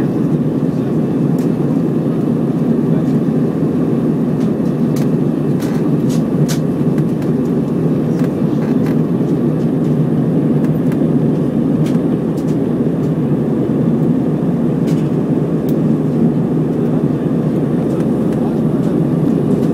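Airbus A320 climbing after takeoff: a steady, even roar of engines and airflow, with a few faint clicks.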